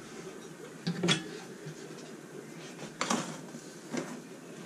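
Kitchen handling noise: a few brief knocks and clinks of items being moved about, about a second in, around three seconds in and again near the end, over a faint steady hiss.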